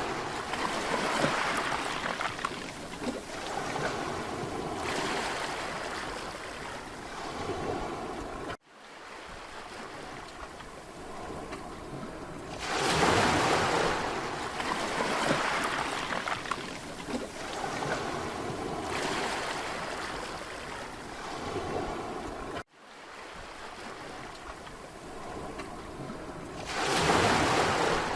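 Mediterranean sea waves washing onto a beach, the surf swelling and ebbing in repeated surges. Twice the sound cuts out abruptly and fades back in, where the recording is spliced.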